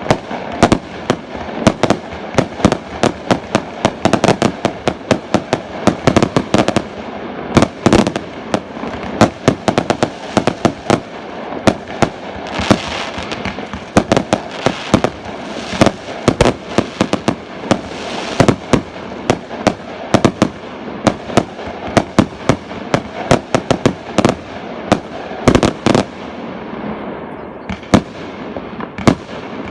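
Fireworks display going off in a dense, continuous barrage of sharp bangs, several a second, with crackling in between.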